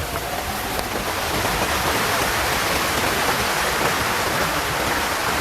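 Steady hiss of heavy water falling on the tent during its rain-resistance test, growing a little louder about a second in.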